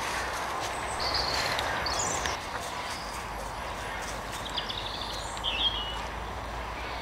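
Paws rustling and crunching through dry fallen leaves as dogs walk about, with a few short bird chirps in the background.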